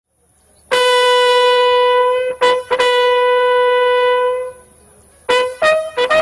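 Bugle call: a long held note starting about a second in, broken briefly partway through, then after a short lull a run of short notes stepping up in pitch near the end.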